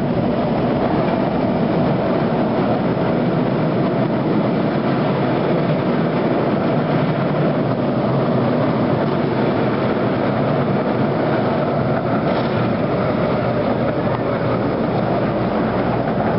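Miniature railway passenger car running along the track, with a steady rumble and rattle of its wheels on the rails.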